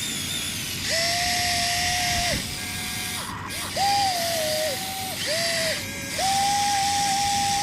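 Electric gear motors of a Huina 1593 RC excavator whining in a string of runs, each lasting up to about a second and a half and starting and stopping with a brief dip in pitch, as the machine's boom, arm and bucket are worked.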